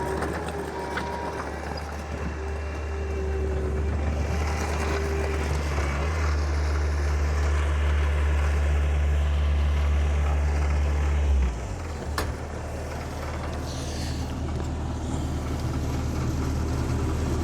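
Engine of a piece of heavy grading equipment running steadily, working harder about six seconds in and dropping back abruptly near eleven seconds, with a sharp click just after. A few short beeps sound in the first seconds.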